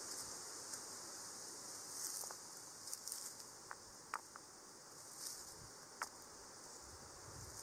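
Steady high-pitched insect chorus, with a few short, sharp clicks scattered through it.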